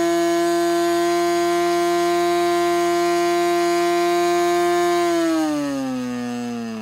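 Lincoln .61 single-cylinder two-stroke glow engine with a 13x6 propeller, running steadily at high speed, leaned out to around 10,000 rpm for break-in. About five seconds in it slows, its pitch falling and the sound getting quieter.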